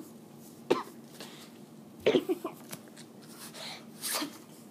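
A child coughing into a tissue held over his mouth, in three short bouts: about a second in, around two seconds in with several quick coughs, and again near the end.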